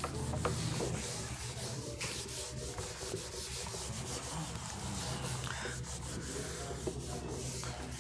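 A steady scratchy rubbing noise with many small clicks, over a low steady hum.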